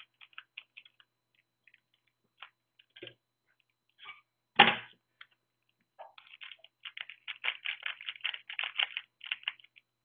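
A small plastic bag of hard-drive screws being handled and opened: crinkling plastic and small screws clicking, densest over the last four seconds, with one louder knock about halfway through.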